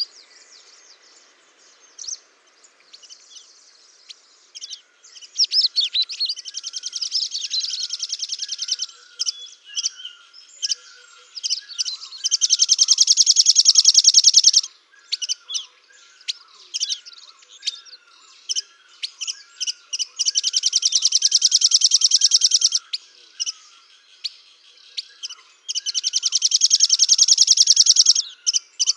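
Small songbirds singing and chirping: four long, fast trills of two to three seconds each, the loudest sounds, with scattered short high chirps between them and a quieter lower chirp repeating about once a second throughout.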